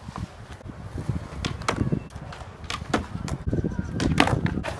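Skateboard wheels rolling over concrete with a low rumble. Several sharp clacks of the board's tail and wheels against the concrete come as the rider ollies onto a concrete box and rolls off its far end.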